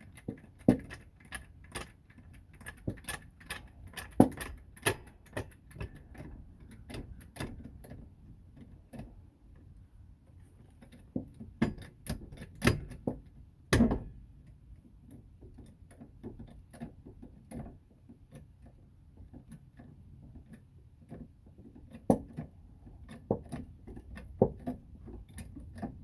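Irregular metallic clicks and clinks of hand tools and lug nuts being handled during a wheel change, with one louder knock about 14 seconds in.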